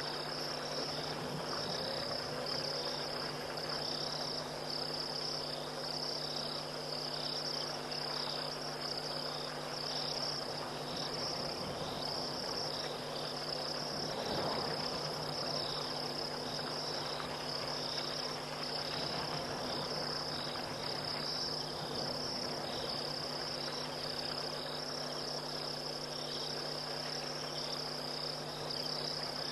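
Night chorus of crickets and other insects: a dense, steady high-pitched chirping in close pulses, with a low steady hum beneath it.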